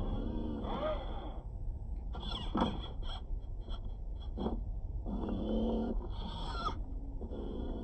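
Electric motor and gearbox of a small RC crawler truck whining in spurts as the throttle is fed on and off, with short pitched buzzing sweeps between, the loudest about two and a half seconds in.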